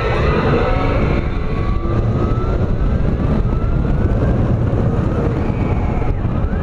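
Steel roller coaster train running at speed: a steady, loud rush of wind and rumble of the wheels on the track.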